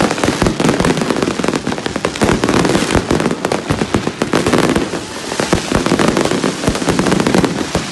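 Fireworks going off close by: ground fountains and aerial bursts crackling and popping in a dense, unbroken stream of small bangs.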